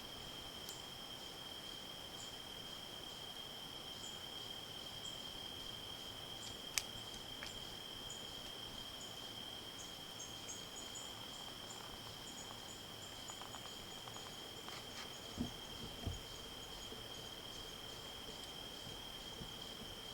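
Steady, high-pitched drone of crickets or other insects in the woods, with faint high chirps over it. A single sharp click comes about a third of the way in, and two soft low thumps about three quarters of the way through.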